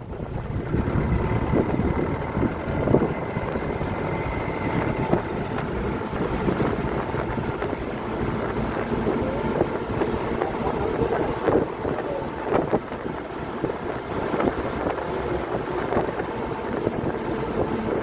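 Running noise from inside a moving bus: engine and tyre drone with wind buffeting at the open window, and short rattles and knocks now and then.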